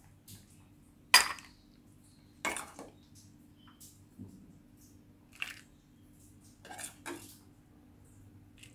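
Steel spoon clinking and scraping against a glass serving bowl as vegetable kurma is spooned in: a handful of short sharp clinks and knocks, the loudest about a second in.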